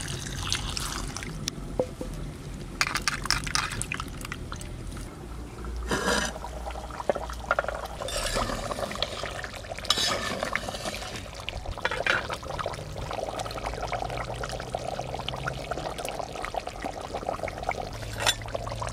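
Water poured over tomatoes in a bowl as they are rinsed, then a spoon stirring and clinking in a clay pot of chicken curry. Near the end the curry bubbles steadily at a simmer.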